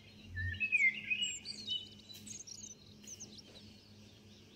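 Small birds chirping and twittering in quick, high, sweeping notes, busiest in the first three seconds and thinning out after. A brief dull low bump sounds near the start, over a faint steady low hum.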